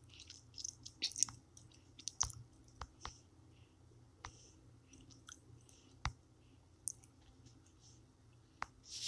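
Faint, scattered clicks and taps, a dozen or so at irregular intervals: fingers tapping a smartphone's touchscreen, picked up by the phone's own microphone.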